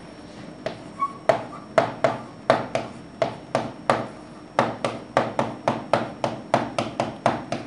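A pen tapping and clicking against the glass of a touchscreen writing board as a line of handwriting is written: a run of uneven sharp taps, about two or three a second.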